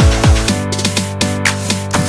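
Electronic dance music with a fast kick-drum beat. The beat drops out about half a second in, leaving held chords.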